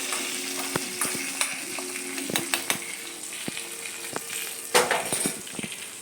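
Tempering of mustard seeds, dals, chillies and curry leaves sizzling in hot oil, with a spoon clicking and scraping against the metal pan, and a louder clatter about five seconds in.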